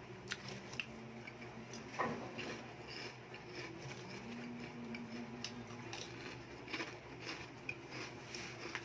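Quiet room tone: a steady low hum with scattered faint clicks and taps, and one short louder sound about two seconds in.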